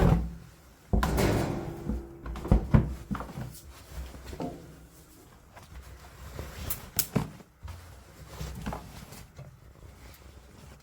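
Irregular knocks, bumps and clatter of objects being handled. There is a loud thump at the start and another about a second in, two sharp strikes a little later, then lighter knocks and clicks tapering off.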